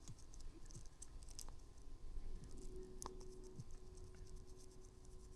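Faint scratching and small clicks of a PurePort cleaning tool working inside a phone's charging port, with one sharper click about three seconds in.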